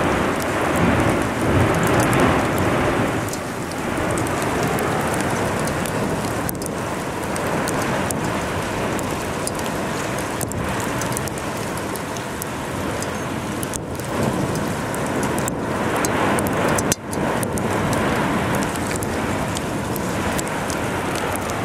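Blocky 'a'ā lava flow advancing: a continuous dense crackling, rushing noise, with many sharp clinks and cracks as glowing blocks tumble and break.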